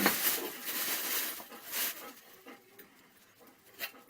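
An Old English Sheepdog sniffing close by: a few short, noisy breaths in the first two seconds, then quieter.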